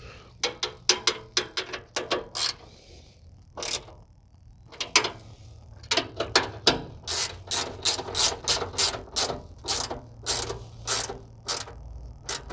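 Hand ratcheting wrench clicking in short back-and-forth strokes as it tightens the radiator's mounting bolts, a few strokes early, then after a pause a long quick run of them.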